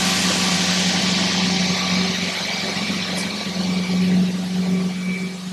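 Fadal CNC vertical milling machine running: a steady hum with a loud hiss over it.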